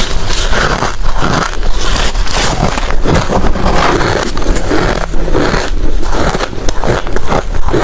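Ice being bitten and chewed close to the microphone: a dense, continuous run of loud crunches and cracks.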